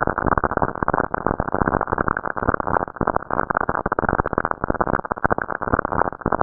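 Sonified radio recording of Saturn's lightning storms: a dense, continuous crackle of rapid static clicks, muffled with no high end.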